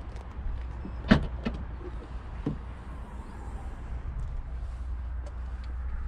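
Ford Focus estate tailgate being opened: a sharp latch click about a second in, followed by two lighter clunks as the tailgate lifts.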